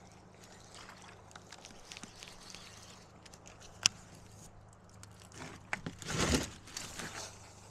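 Quiet clicks from handling a fishing rod and reel, with one sharp click about four seconds in, then a short rushing whoosh about six seconds in as the rod is cast.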